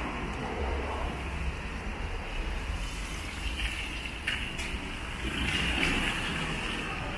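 Traffic on a wet street: tyres hissing on rain-soaked asphalt as cars pass close by. The noise swells as a pickup truck passes in the middle and again as another vehicle passes near the end.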